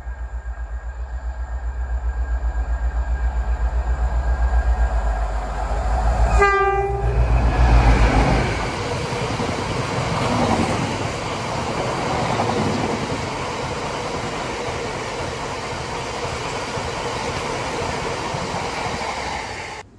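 Freight train passing close by: the locomotive's low pulsing engine throb grows louder as it nears and it sounds one short horn blast about six and a half seconds in. Then a long rake of open box wagons rolls past with steady wheel and rail noise.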